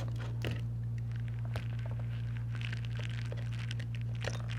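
Steady low electrical hum with a few faint, light clicks of a small screwdriver working a tiny screw out of the tablet.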